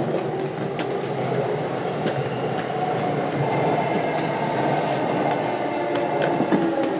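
Running noise heard inside a JR East E233 series electric train's motor car: steady wheel and rail rumble with a few short clicks of the wheels passing over rail joints.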